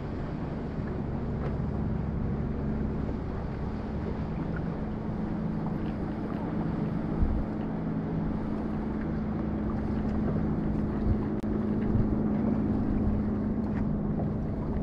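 Steady hum of a bass boat's bow-mounted electric trolling motor over wind and water noise, with a couple of brief knocks about seven and eleven seconds in.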